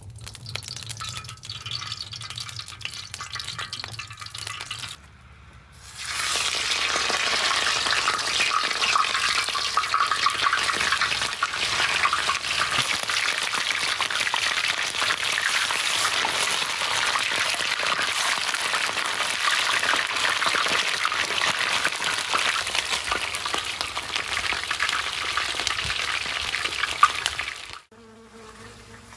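Goose pieces frying in hot oil in a large steel frying disc: a loud, steady sizzle with dense crackling that starts about six seconds in, after a quieter stretch while the oil is poured in. Near the end the sizzle cuts off abruptly and gives way to a faint low hum.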